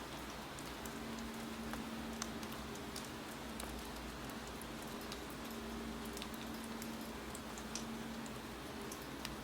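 Steady rain with scattered, irregular sharp clicks of keyboard typing. A low hum fades in and out underneath.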